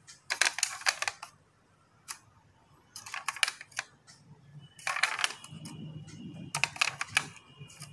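Handling noise from a die-cast toy car being turned by hand: four short bursts of clicking and rattling with quiet gaps between.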